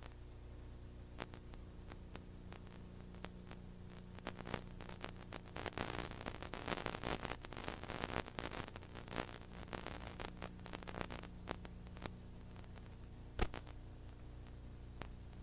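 Faint steady electrical hum and hiss with irregular crackling and clicks, thickest in the middle, and one sharp click near the end: the noise floor of an old analog soundtrack.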